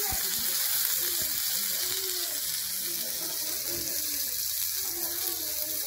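Chicken breast sizzling steadily in a hot ridged grill pan, with faint voices in the background.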